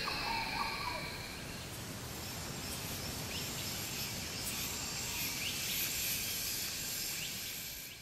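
Tropical forest ambience: insects trilling steadily at a high pitch, with a few short bird chirps, fading out near the end.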